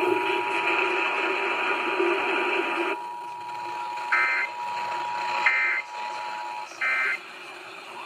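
Off-air FM radio audio with a steady two-tone Emergency Alert System attention signal. The programme sound drops out about three seconds in, then three short warbling bursts of EAS digital data tones about 1.4 seconds apart: the end-of-message code that closes an alert test.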